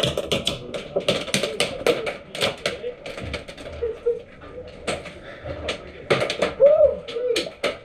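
Airsoft gunfire in an enclosed building: many sharp, irregular cracks and clicks, some in quick strings, with echo from the small room.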